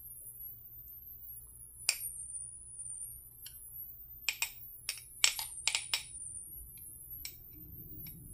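Sharp clicks and clinks of a glass jar being handled: one about two seconds in, then a quick run of six or seven close together in the middle.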